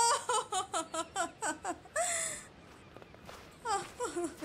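A woman's high voice laughing in quick short syllables, then a short cry about two seconds in, and a few more short voiced sounds near the end.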